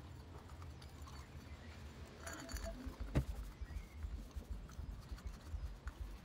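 Brisk rubbing of a microfiber rag over a brass chandelier part, with rapid, uneven dull thumps from the handling that grow busier about halfway through, and one sharp click about three seconds in.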